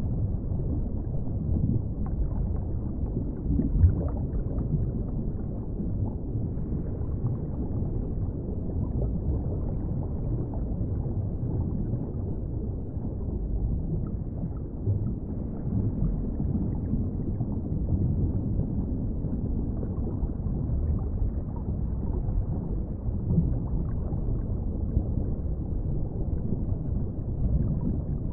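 Underwater ambience: a steady, low rumbling wash of water heard below the surface, with small irregular knocks and one brief louder knock about four seconds in.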